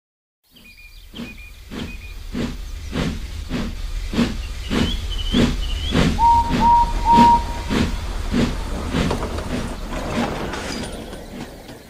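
Steam locomotive chuffing at a steady pace, about one and a half chuffs a second, with hiss and a low rumble; it fades in, swells and fades away again. About halfway through, the whistle gives three short toots, and birds chirp now and then.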